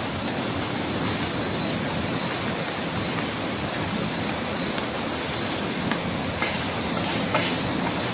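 A steady rushing noise with a thin, steady high whine over it, and a few sharp clicks about six to seven seconds in.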